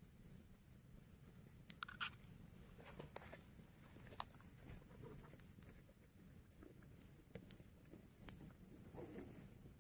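Faint, sparse crackles and pops from a small wood campfire, a scattering of short sharp ticks over a quiet background.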